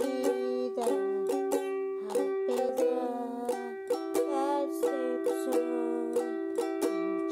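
Ukulele strummed in a steady rhythm, about two to three strokes a second, ringing chords.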